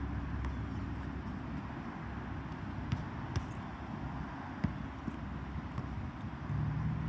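Steady outdoor background noise with a few scattered sharp knocks of a basketball bouncing on an outdoor court, around the middle.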